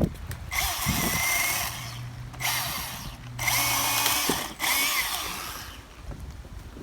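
Milwaukee M18 cordless 16-inch chainsaw running in four short bursts, each with a high whine, while cutting through small pine branches.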